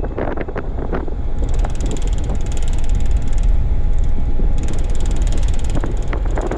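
Wind buffeting the microphone over a low rumble. From about a second and a half in until near the end, a fast, even mechanical rattle of rapid ticks rides on top.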